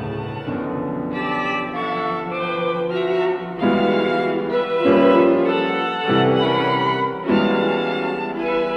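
Music with a violin playing slow, held notes over bowed strings. It swells louder about halfway through.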